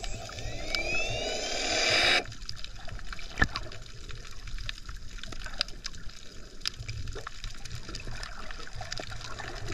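Underwater sound picked up by a submerged camera: a steady water hiss with scattered crackling clicks and one sharper click a few seconds in. Over the first two seconds a rising electric-motor whine from the handheld underwater scooter's thrusters spins up, then cuts off abruptly.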